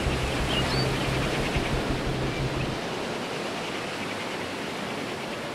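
Steady rushing noise with a low hum that cuts off suddenly about halfway through, and a few faint high chirps in the first second.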